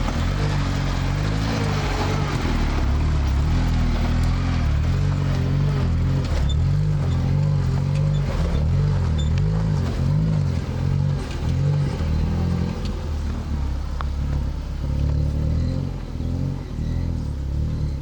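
Lada Niva's four-cylinder engine labouring as the 4x4 crawls slowly up a very rough dirt road, its pitch rising and falling with the throttle.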